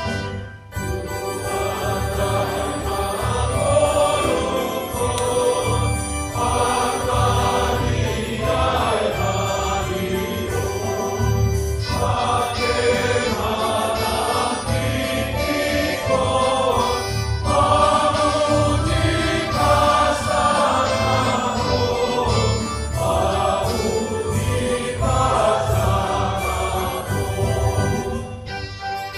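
A church congregation singing a hymn together in Batak Toba, with instrumental accompaniment.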